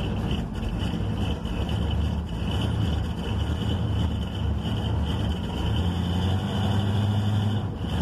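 Old three-quarter-ton pickup's engine running steadily, heard from inside the cab, a low rumble that grows a little stronger about five seconds in. The owner thinks the motor is blown, with oil in the radiator.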